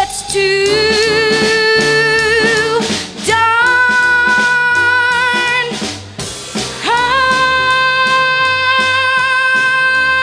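A young female singer holds three long notes with vibrato, each a little higher than the one before, over a backing track with drums. The last and longest note begins about seven seconds in.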